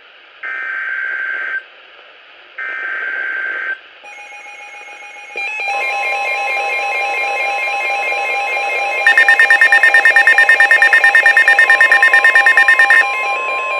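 Two raspy NOAA Weather Radio SAME digital data bursts, followed by the steady 1050 Hz weather radio warning alert tone. Over the tone, weather radio receivers sound electronic beeping alarms, one of them a fast pulsing beep through the middle.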